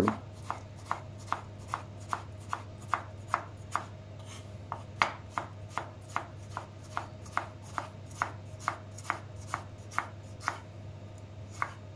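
Kitchen knife slicing a tomato on a wooden cutting board: short, even knocks of the blade against the board, about two or three a second, with a brief pause about four seconds in and again near the end.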